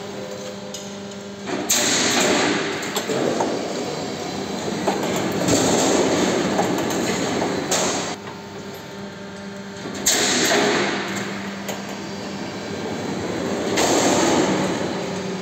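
A C/Z purlin roll forming machine running: a steady motor hum with galvanised steel strip clattering through the forming roller stands. Louder clattering stretches come and go about every four seconds.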